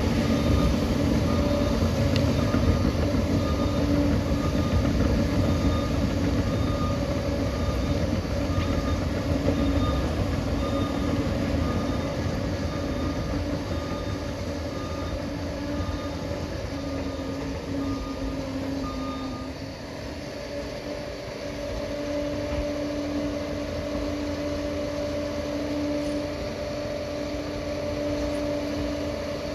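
Steady low rumble of a running vehicle with a held hum, and a faint beep repeating about once a second that stops about two-thirds through.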